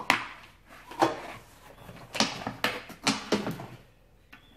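A series of about six knocks and bumps from objects being handled and moved on a kitchen countertop, the louder ones near the start, around a second in, and in a cluster just past the middle.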